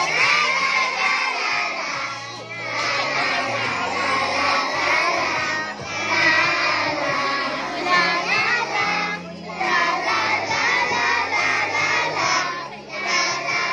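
A group of young children singing a song together in unison, in phrases broken by short breaks about every three to four seconds.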